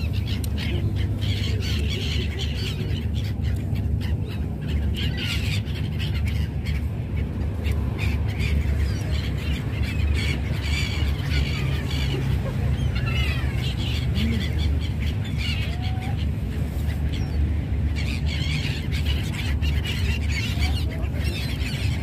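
Many gulls calling at once, overlapping cries that come and go throughout, with a steady low rumble underneath.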